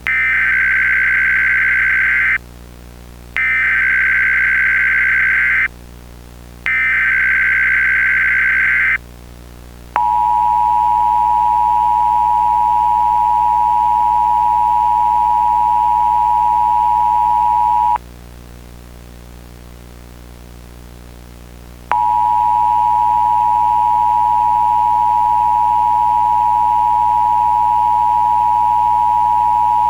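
Emergency Alert System tones: three identical bursts of digital header data, each about two seconds long with a short pause between, then the two-tone EAS attention signal held steady for about eight seconds, a pause of about four seconds, and the attention signal again.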